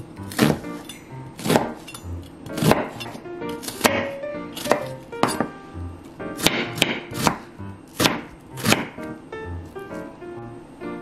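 Chef's knife cutting through an onion onto a wooden cutting board: about a dozen separate strokes at an uneven pace, over soft background music.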